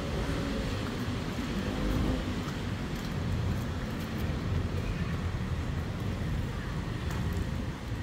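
Steady low rumble of outdoor background noise, with faint voices in the first second.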